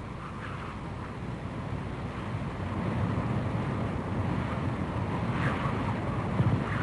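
A steady low rumbling noise, like wind or a distant engine, growing slowly louder.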